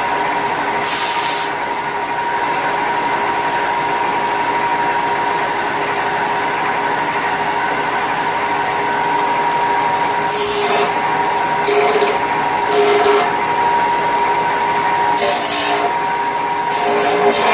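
Electric power tool running with a steady whine, working an aluminum piece, with short rasping bursts about ten seconds in and several more near the end as it bites into the metal.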